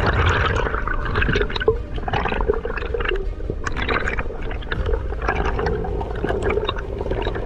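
Underwater sound through a camera housing: a constant low rumble with water swishing in swells about once a second, and scattered clicks and crackles.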